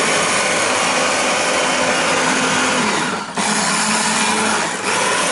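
Electric food processor running, grinding feijoa with sugar into a purée. The motor noise dips briefly about three seconds in and again near the end.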